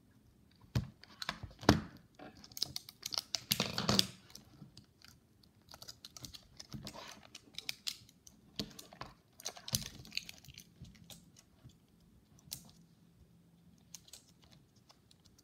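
Hard plastic toy parts clicking and knocking, with crinkling plastic, as a toy dinosaur is worked free of its plastic cage and packaging. The clicks come in irregular bursts, loudest about two seconds and four seconds in, then thin out.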